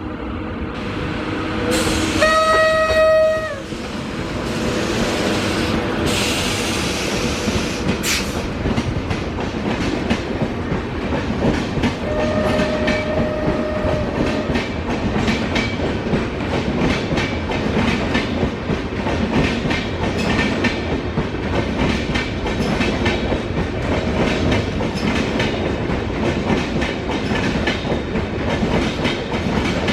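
WAP-5 electric locomotive's horn giving the weird, funny honk of a Ghaziabad-shed loco: a short lower note jumping to a long higher one about two seconds in, another long blast near the middle and a brief toot later. Under and after the horn, the train's wheels run with a steady clickety-clack and rumble as the express picks up speed.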